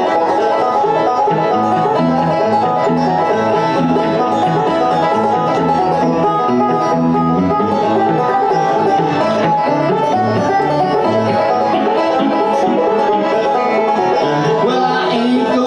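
Banjo and electric guitar playing a bluegrass instrumental passage, a steady run of quickly picked notes without singing.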